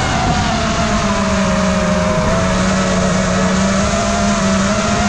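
FPV drone's motors and propellers whining steadily, the pitch wavering up and down with the throttle, over a constant rush of wind noise.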